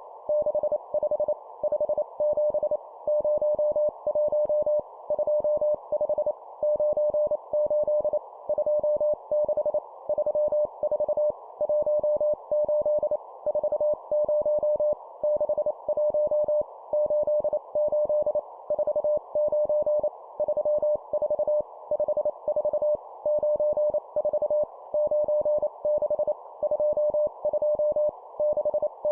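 Morse code (CW) sidetone keyed at 25 words per minute: a single steady beep switched on and off in dots and dashes, sending two-digit number groups with short pauses between them, over a faint steady hiss.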